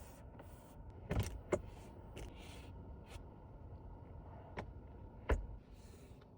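A few short knocks and clicks over a low steady rumble, two close together just after a second in and the loudest, deepest thump a little after five seconds.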